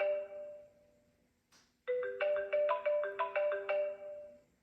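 Electronic tune from a children's button sound book's speaker: a short, tinkling, xylophone-like jingle with quick repeated notes over held tones fades out. A click comes about a second and a half in, and the same jingle plays again from the start.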